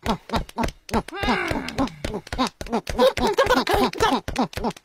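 Cartoon penguin voices chattering in Pingu's made-up gibberish: a fast, even string of short rising-and-falling calls, with one longer falling call about a second in.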